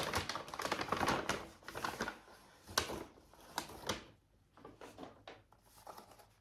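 Paper bag and packaging rustling and crinkling, with small irregular clicks and taps as an item is taken out. It is dense for about the first four seconds, then thins to scattered ticks.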